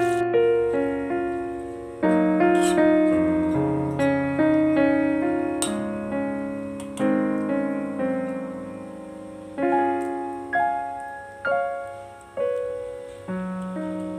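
Background solo piano music: a gentle melody of struck notes and chords that ring and fade.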